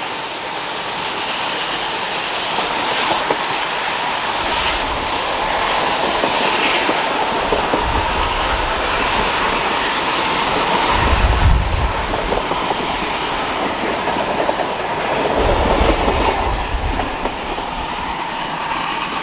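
Passenger train behind a steam locomotive rolling past, wheels clattering over the rail joints, with a steady rumble that swells with heavier low thumps a few times midway and later on.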